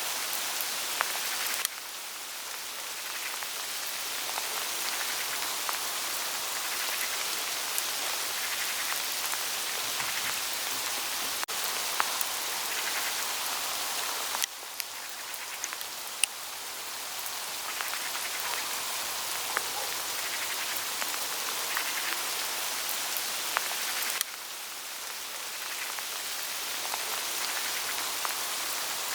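Hail pellets pattering steadily onto dry autumn leaves, a dense hiss of small ticks with sharper single hits scattered through it. The level drops suddenly a few times and then builds again.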